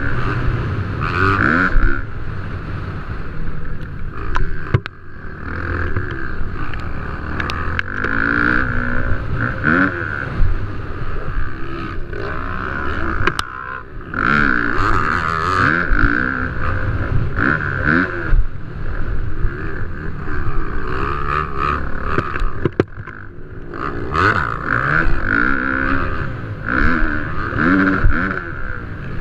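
Motocross dirt bike engines racing, revving up and falling off again and again as they are worked around the track.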